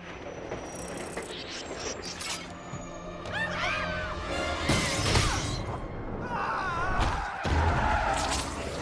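Action-film fight soundtrack: orchestral score under several loud crashing, shattering impacts, with people screaming in alarm partway through.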